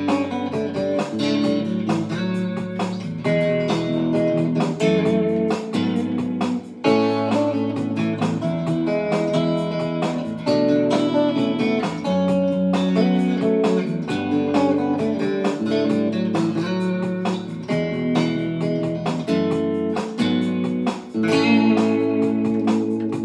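Mosrite electric guitar being played: a continuous run of picked notes and chords.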